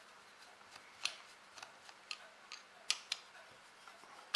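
Screwdriver working a screw out of the brass trigger guard of an Uberti 1860 Army revolver replica: faint, irregular small metal clicks and scrapes, with a few sharper clicks.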